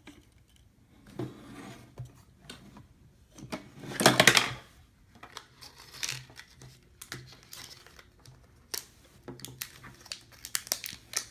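Toy packaging being crinkled and torn open by hand, with scattered small clicks and rustles; the loudest tearing comes in a burst about four seconds in.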